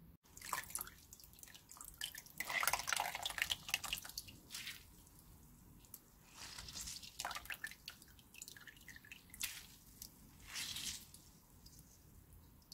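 Water dripping and splashing back into a glass bowl as soaked dried radish strips are wrung out by hand, coming in uneven spells of a second or so with short lulls between.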